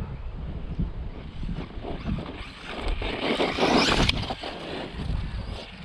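Budget 1/10 electric RC truck driving over dirt, its tyres scrabbling and scraping. A louder rush of noise comes in about two and a half seconds in and stops abruptly about four seconds in.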